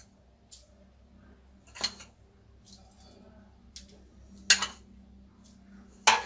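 A metal spoon clinking and scraping against a small plastic bowl and dishes as spice powder is spooned out and sprinkled: a handful of separate clinks, the loudest a little past halfway.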